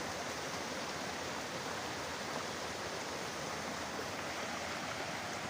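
Water rushing steadily along a mountain stream.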